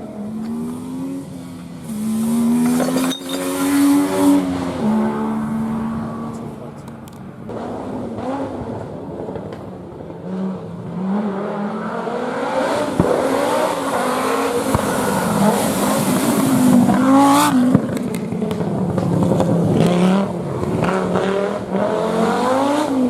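Rally car engines revving hard, the pitch climbing and dropping back again and again with the gear changes, loudest about two thirds of the way through.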